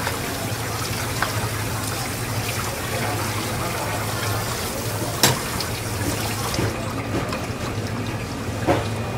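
Water running from a hose over a whole parrotfish on a cutting board while it is scrubbed, with a steady low hum underneath. There is a single sharp knock about five seconds in, and the water's hiss thins later on.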